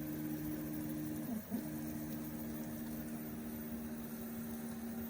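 LowRider v3 CNC's stepper motors whining steadily as the gantry moves the pen across the sheet during a plot. The pitch briefly drops and comes back up about a second and a half in.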